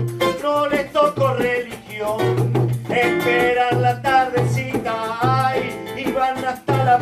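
Live Latin-American song with guitar, percussion keeping a steady beat, and a man singing.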